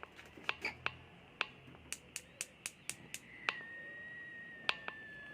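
Gas stove igniter clicking: sharp snapping clicks, irregular at first, then an even run of about four a second. After about three and a half seconds the run stops, and a steady high whistle-like tone sets in and slowly sinks a little in pitch, with two more clicks near the end.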